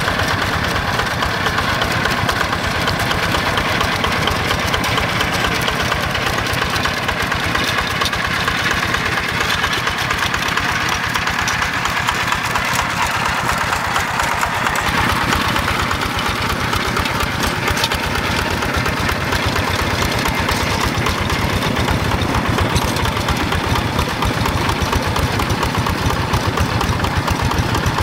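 Single-cylinder Yanmar diesel engine of a Quick G1000 two-wheel hand tractor running steadily under load, a fast even pulse of firing strokes. About halfway through, the sound turns lower and fuller.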